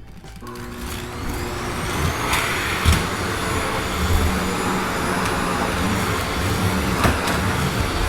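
Vacuum cleaner switched on: its motor spins up with a rising whine over the first couple of seconds, then runs steadily with a loud rush of air. There are a couple of brief knocks, one about three seconds in and one near the end.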